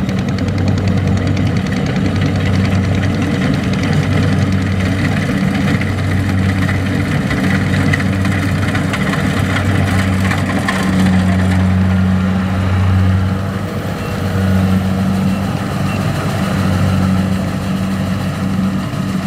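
Engine of a rice-harvesting machine running steadily with a loud, deep hum that swells and eases every second or two.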